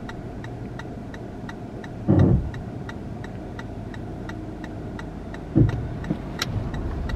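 Car engine idling, heard inside the cabin as a steady low hum, with a light regular ticking running through it. Two brief, louder low sounds stand out, about two seconds in and again near the end.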